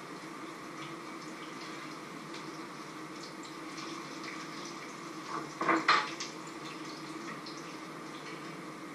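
Food frying in a pan, sizzling steadily with faint crackles. A short clatter, the loudest sound, comes a little past halfway.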